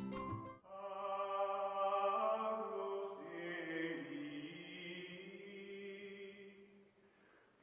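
Background music: a slow choir-like chant of long held chords, which fades away near the end. A few bright struck notes open it.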